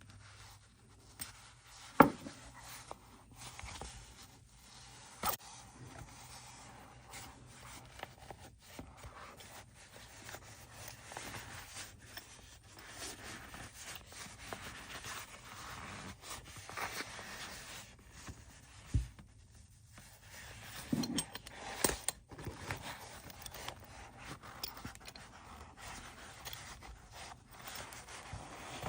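Handling noise of a nylon drumstick bag being fitted onto its clamp-on holder: soft rustling and scraping of the fabric with scattered sharp clicks and knocks, the loudest about two seconds in.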